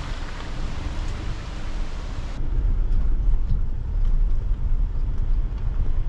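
A car driving along a dirt forest track: a steady low rumble of engine and tyres. A hiss of wind on top cuts off abruptly about two and a half seconds in.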